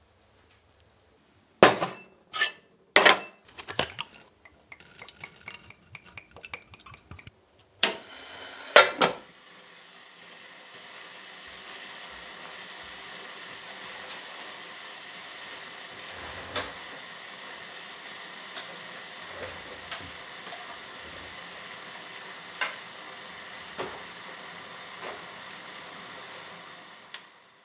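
A stainless-steel cooking pot and its lid clanking and knocking several times as they are handled. Then a steady hiss of the pot heating on the stove for most of the rest, with a few light ticks.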